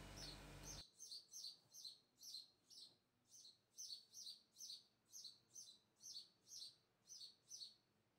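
Faint, regular series of short high chirps from a small bird, about two to three a second, with a low steady hum that stops about a second in.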